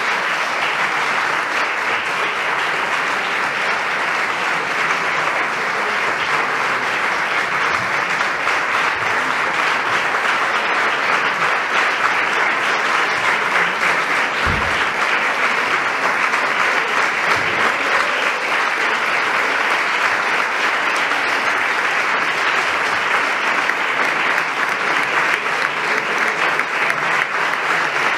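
Sustained applause from a large crowd of people clapping, steady and dense, with a single dull low bump about halfway through.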